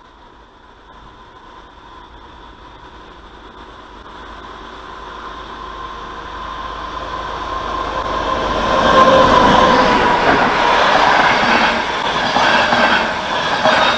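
Passenger train approaching along the track and passing close by. A steady hum at first, then the locomotive and a string of coaches grow steadily louder until the coaches are going past with the rush and rumble of wheels on rails. The sound cuts off sharply at the end.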